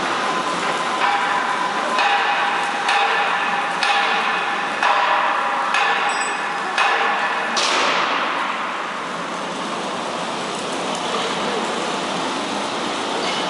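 Rock-and-roll rotational moulding machine, its drum rocking over a row of open gas flames, with a steady rushing noise. For the first seven or eight seconds, sharp ringing metal knocks come about once a second over it, then only the steady noise remains.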